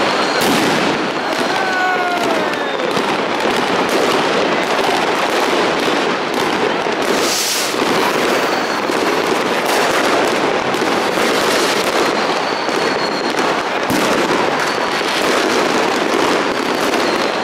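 A dense, unbroken barrage of fireworks and firecrackers going off all around, crackling and banging without pause. A few whistling glides come about two seconds in, and a brief hiss about seven seconds in.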